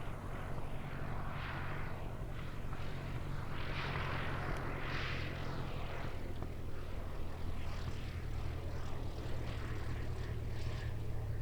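Light propeller aircraft's piston engine running with a steady low drone, with swells of rushing noise, the strongest about four to five seconds in.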